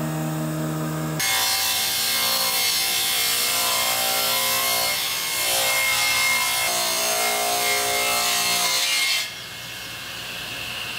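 Electric woodworking machines cutting boards in a few short edited-together passes: first a jointer planing a board's edge, then a table saw ripping boards, its motor humming under the noise of the cut. The sound drops in level suddenly about nine seconds in.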